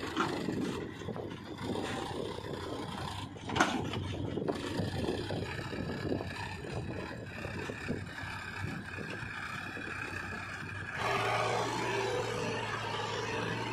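Powertrac 434 DS Plus tractor's three-cylinder diesel engine running as it pulls a trailer loaded with soil, with a single sharp knock about three and a half seconds in. From about eleven seconds in the engine is louder, with a steady low hum.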